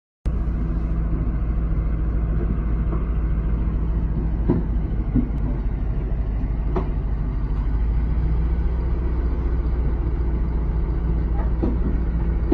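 Diesel engine of a large Caterpillar crawler bulldozer running steadily under load as it drives up onto a low-bed trailer, with a few short sharp knocks.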